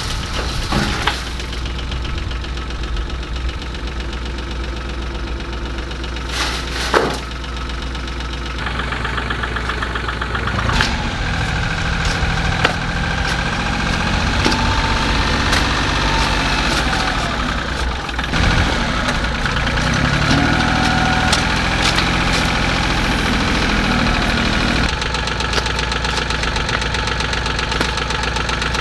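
Engine of digging equipment running steadily, its pitch shifting as the load changes while it digs, with a few sharp knocks.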